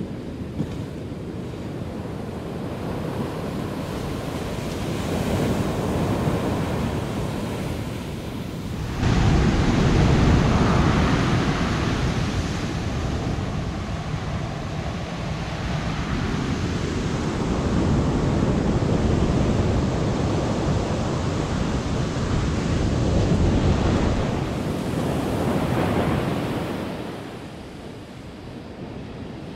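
Sea surf breaking and washing up a sandy beach, a continuous rushing that swells and ebbs with the waves. About nine seconds in it turns suddenly louder and heavier, with wind on the microphone, and it falls back to a softer surf near the end.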